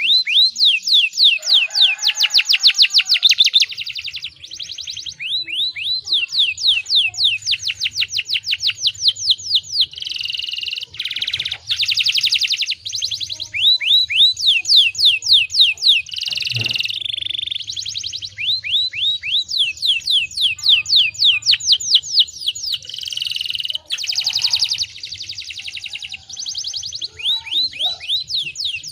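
Domestic canary singing a long song of rapid trills: fast runs of falling whistled notes, about seven or eight a second, broken by short pauses and buzzier rolling phrases. A faint low hum sits underneath.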